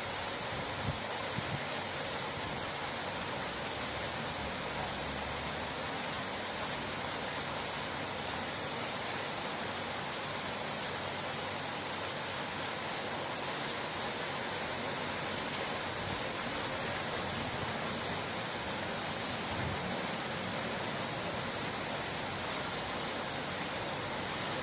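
Water rushing steadily in an even, unbroken hiss.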